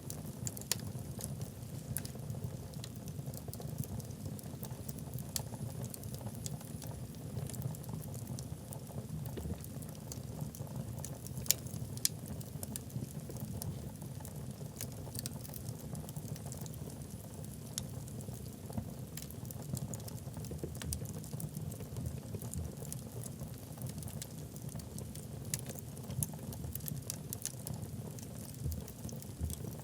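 Wood fire burning in a fireplace: a steady low rumble of flames under frequent small crackles of the logs, with a few sharper pops, two of them close together about halfway through.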